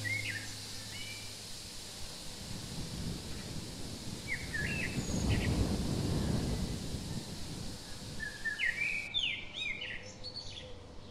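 Outdoor ambience of small birds chirping in short calls: a few near the start, a cluster about halfway through and more near the end, over a steady hiss. A low rushing noise swells in the middle and fades again.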